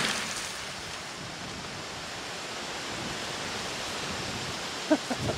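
The tail of a .45 Colt rifle shot dies away in the first half second, leaving a steady even outdoor hiss, wind-like or of water running from the shot jugs. A brief pitched sound comes near the end.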